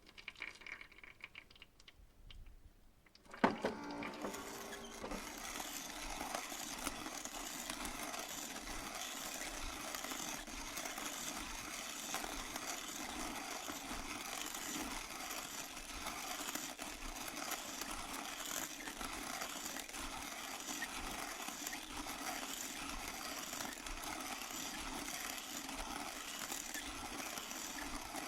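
Electric burr coffee grinder: a few faint clicks, then the motor starts abruptly about three and a half seconds in and runs steadily as the beans are ground.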